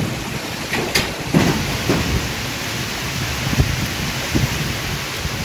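Heavy rain pouring down in a windy thunderstorm, a dense steady hiss with a low rumble of thunder underneath. A few sharp taps stand out about a second in and again in the middle.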